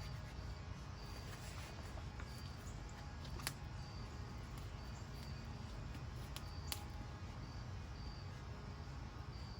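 Backyard wood fire crackling, with a few sharp pops, over a steady low rumble. Short high chirps repeat about once a second.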